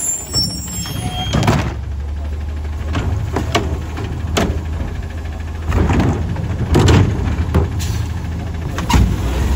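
Garbage truck's Curotto Can automated arm lifting a wheeled trash cart, dumping it into the can and setting it back down. The truck's engine runs steadily underneath and picks up about a second and a half in, with a series of about eight sharp clanks and bangs as the cart is tipped and shaken out.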